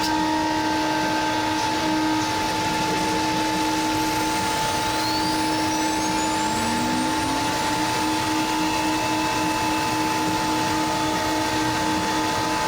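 CNC router running steadily along with its dust-collection vacuum: a constant rushing noise over a steady hum. A faint whine rises in pitch about halfway through.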